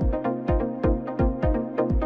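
Background electronic music with a steady beat of about two beats a second, sustained tones and light ticks on top.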